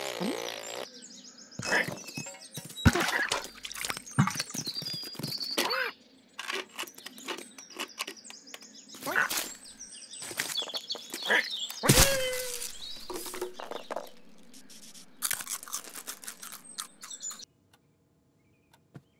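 Cartoon sound effects for a cat and a squirrel: quick scrabbling and knocks mixed with high chirping and squeaking calls, cutting off to near silence shortly before the end.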